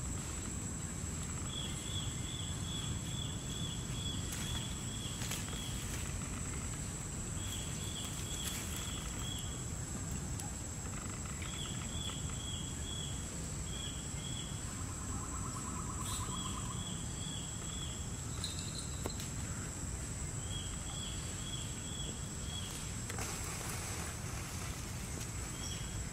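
Outdoor ambience: a steady high-pitched insect drone over a low rumble, with a bird calling in short runs of rapid repeated notes every few seconds.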